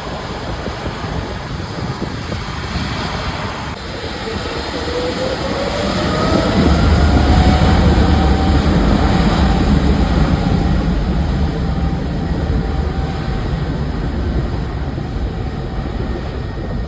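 A large passing machine: a low rumble swells about six seconds in and then slowly eases, while a whine glides upward in pitch over it.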